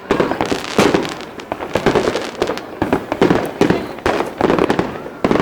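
New Year's fireworks going off in a rapid, continuous barrage of bangs and crackling, with a few faint rising whistles.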